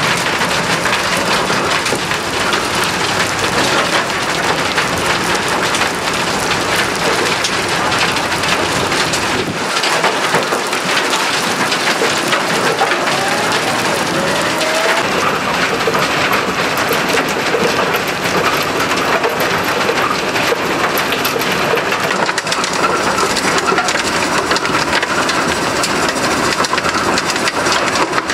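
Soil screening plant at work: screened topsoil pouring off the end of its conveyor belt in a steady, dense patter like heavy rain, over the running machine.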